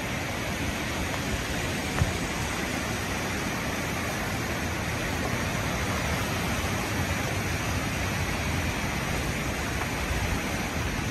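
Oconaluftee River in flood from Hurricane Helene's rains, its swollen, fast brown water rushing with a steady roar. A single short knock sounds about two seconds in.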